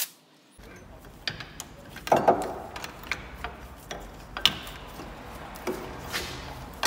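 Scattered metal clinks and knocks, loudest a little after two seconds in, as the loosened Torx bolts and the crankshaft pulley are handled and pulled off by hand.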